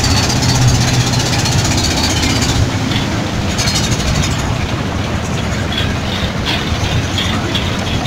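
A boat engine running with a steady low drone under a broad wash of noise; the high hiss drops away a little under three seconds in.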